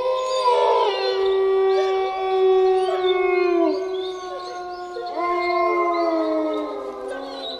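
A pack of wolves howling together, several long overlapping howls at different pitches, some falling away about three to four seconds in and a fresh rising howl joining about five seconds in.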